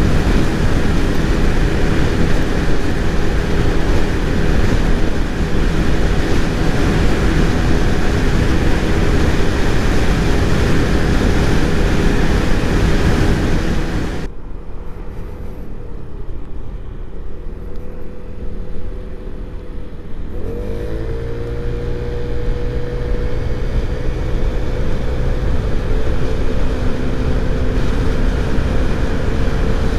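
Piaggio Medley 125 scooter's single-cylinder engine running near top speed under heavy wind noise. The sound drops suddenly about 14 s in. About 20 s in the engine pitch rises quickly and then holds steady while the scooter gathers speed under full acceleration.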